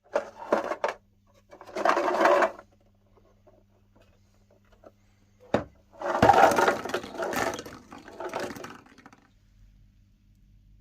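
Crunchy ice cream cones being crushed and cracked in a meat grinder, in several separate bursts of crunching over a steady low hum, with a sharp click about five and a half seconds in.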